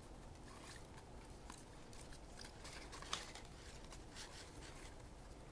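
Faint flicking and rustling of a stack of 1990-91 Upper Deck hockey cards being shuffled through by hand, with scattered light ticks and one slightly louder click about three seconds in.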